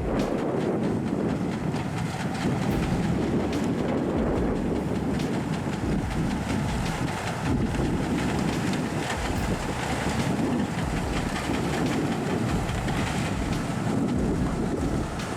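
A heavy vehicle or machine rumbling steadily, with a continuous clattering rattle over a deep rumble.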